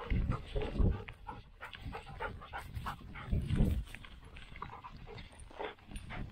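Black Labrador retriever puppy panting close up while it noses and mouths a downed sandhill crane. Feathers and dry stubble rustle, and there are two dull thumps, about a second in and again after three and a half seconds.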